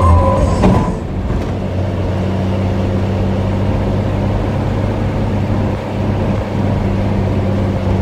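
A bus's multi-tone telolet horn finishing its tune about a second in, then the bus engine running steadily with a low, even hum.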